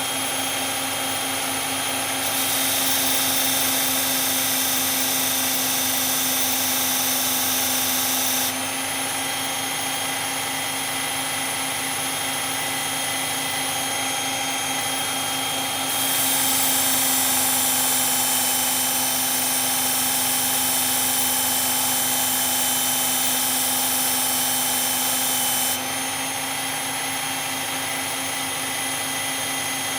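Motor of a powered belt sharpener running steadily with a constant hum. An S30V steel knife blade is pressed against the moving belt twice, from about two to eight seconds in and from about sixteen to twenty-six seconds in, adding a louder grinding hiss.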